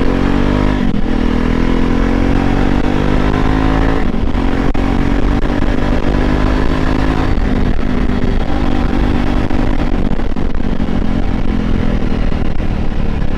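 Jawa Classic BS4 motorcycle's single-cylinder engine pulling hard through the gears, its note rising twice with short breaks at the upshifts, then settling into a steady cruise. The exhaust has its dB killers changed, which the rider credits for the bike's sound.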